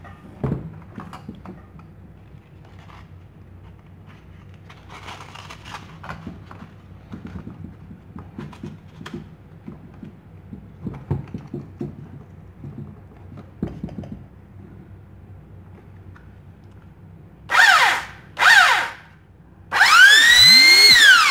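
Parkside PBS 600 A1 belt sander switched on for a test run after repair: two short bursts of the motor, then a longer run whose whine rises in pitch as it spins up and drops as it winds down. Scattered handling knocks and clicks come before it.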